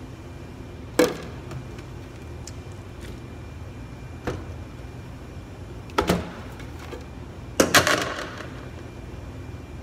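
Steady hum of kitchen extraction or oven machinery, broken by sharp knocks and clatters of containers and utensils being handled: a loud knock about a second in, two lighter ones in the middle, and a quick run of clatters near the end.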